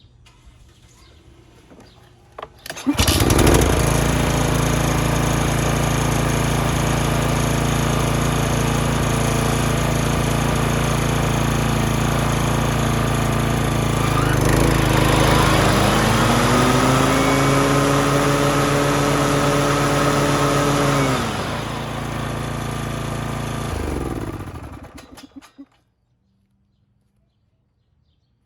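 Toro TimeMaster lawn mower engine, fitted with a new ignition coil, catching on the first pull about three seconds in and running steadily. Partway through, a rising whine joins the engine note and drops away again, and the engine shuts off near the end.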